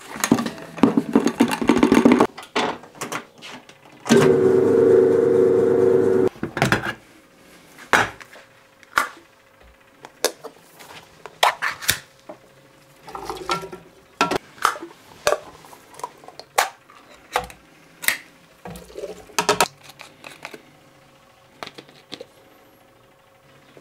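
Handling sounds from making bait: a bowl of dough mix scraped and emptied into a mixer bowl, then a steady hum for about two seconds. After that come scattered clicks and knocks of bottles, caps and a metal measuring cup set down on a scale.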